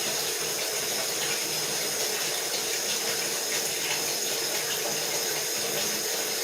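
Kitchen tap running steadily into the sink, a continuous even rush of water, as is used to rinse a raw whole chicken.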